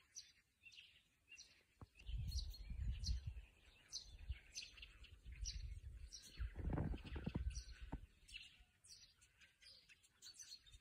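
Common starlings singing: many short, high chirps and whistles throughout, with two spells of low rumbling, about two seconds in and about seven seconds in.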